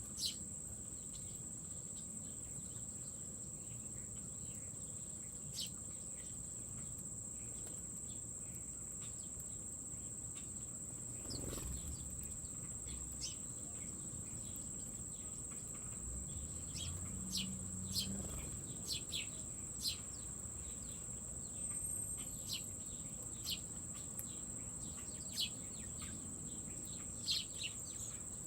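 Insects keep up a steady, high-pitched trill throughout, while small birds give short chirps here and there, more often in the second half.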